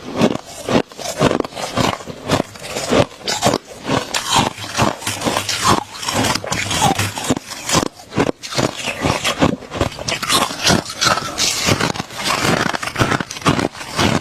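A person biting and chewing freezer frost close to the microphone: a dense, irregular run of loud crisp crunches, several a second, without pause.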